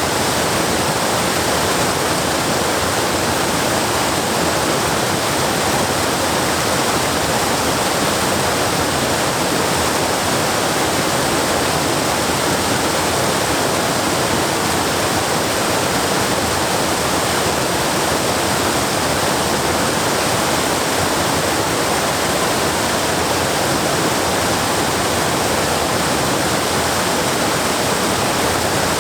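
Waterfall: a steady, unbroken rush of falling water that holds the same level throughout.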